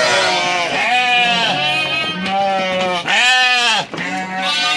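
Sheep and lambs bleating many at once, calls overlapping one after another without a break: lambs calling for their ewes.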